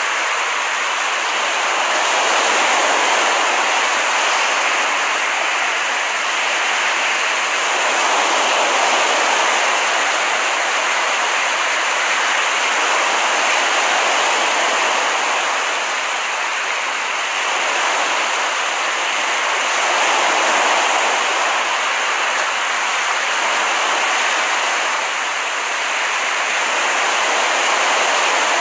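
Ocean surf: waves washing onto a beach in a continuous rush that swells and eases gently about every six seconds.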